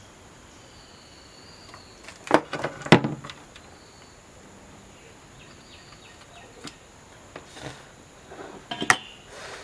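Quiet background with a few short taps and clicks from handling tools and wire while a wire is soldered onto a small LED flasher unit. Two clicks come about two to three seconds in, and one more near the end.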